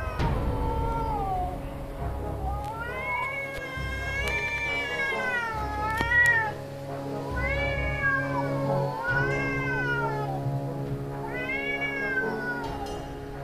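Cats yowling at each other in a hostile standoff: about six long, drawn-out cries that waver up and down in pitch, one after another, over tense background music.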